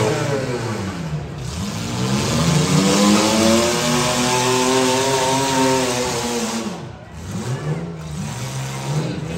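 Demolition-derby compact car engines revving hard while the cars push against each other: the engine note falls in the first second, climbs and holds for a few seconds, eases off with a brief lull about seven seconds in, then picks up again.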